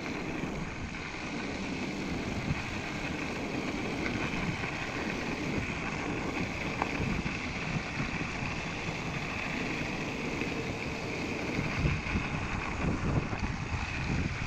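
Mountain bike rolling over packed snow: a steady mix of tyre noise and rumble, with wind buffeting the microphone.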